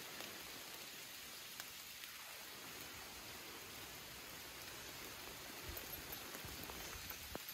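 Light rain falling on forest foliage: a faint, steady hiss with a few scattered drop ticks.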